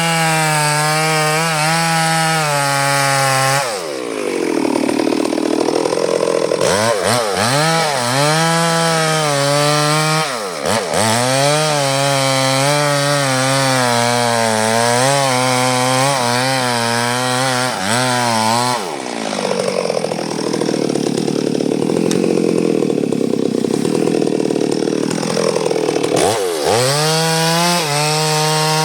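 Chainsaw running at high revs while cutting durian wood, its pitch wavering up and down. About 4 s in, and again for several seconds from about 19 s in, the engine note drops and turns rougher as it labours in the cut.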